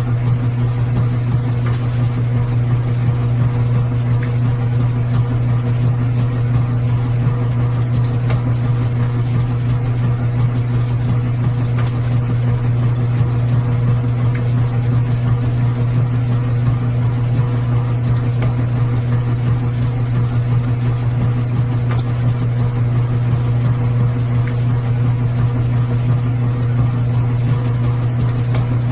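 Washing machine running with a steady, unchanging low hum, with a few faint ticks here and there.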